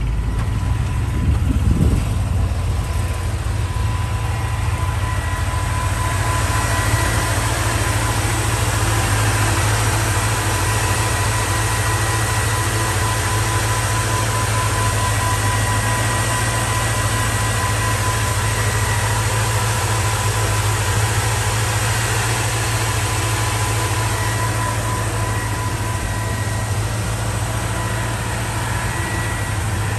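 1957 Chevrolet 3100 4x4 pickup's engine idling steadily, with a steady high whine running alongside the low hum.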